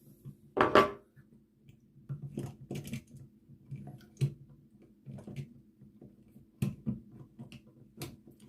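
Small clicks and taps of hands and a tool working on a wall toggle switch and its wires, with one louder clatter a little under a second in.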